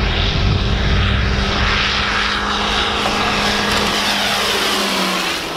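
Light propeller airplane flying low past, its engine and propeller droning steadily, with the pitch dropping slightly near the end as it goes by.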